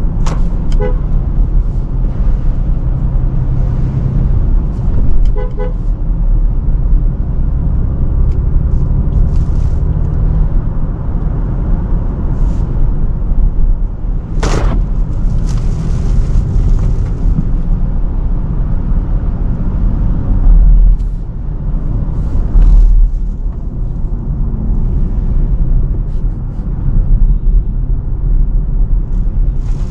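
Range Rover Sport driving through city traffic: a steady low road and engine rumble, with short car-horn toots near the start and again about five seconds in. A brief loud rush comes about fourteen seconds in.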